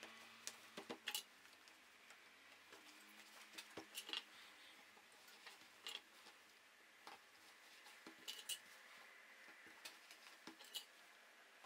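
Faint, scattered small clicks and rustles of denim being handled and pinned with straight pins, at irregular intervals.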